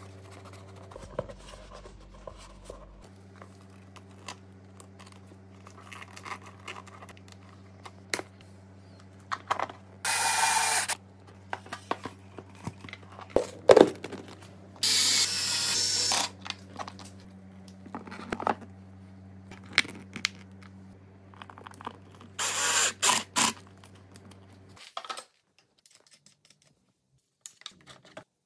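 Workshop handling sounds while motorcycle parts are taken off and fitted: knocks, clicks and scrapes of plastic and metal parts, with three short bursts of a power tool. A steady low hum underneath cuts off near the end.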